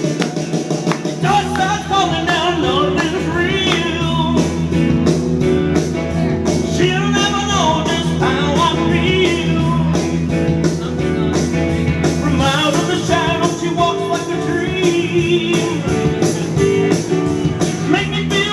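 Rock-and-roll song with a singer holding wavering notes over a band, the low bass notes dropping out about two-thirds of the way through.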